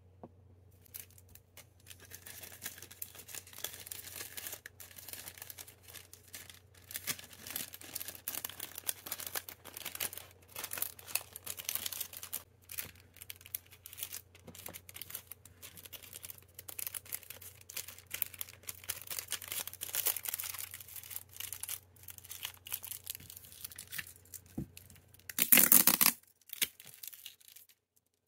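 Clear plastic packaging crinkling and rustling as hands handle small rolls of washi tape, with many small irregular crackles and clicks. Near the end there is one louder, brief ripping sound, and a faint low hum runs underneath.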